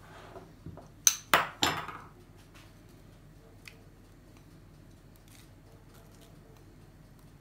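Three sharp clinks of kitchenware about a second in, each with a short ring, as metal and ceramic dishes and utensils are knocked together; after that only a few faint small taps.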